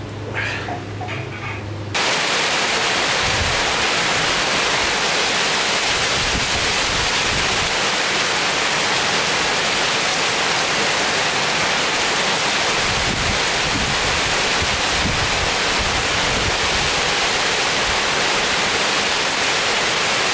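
Rain falling steadily on trees and leafy foliage, an even loud hiss that starts suddenly about two seconds in.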